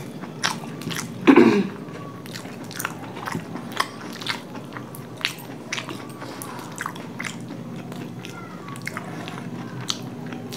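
Two people chewing big mouthfuls of spicy chicken momos, with many short wet mouth clicks and smacks throughout. A brief loud vocal sound with a falling pitch comes about a second in.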